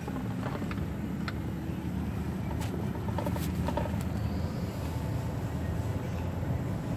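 Steady low rumble of a car driving, with a few light clicks.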